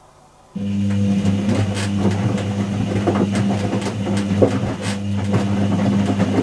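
Whirlpool AWG023 top-loading washing machine starting up abruptly about half a second in, then running with a steady low hum and irregular rattling and clicking.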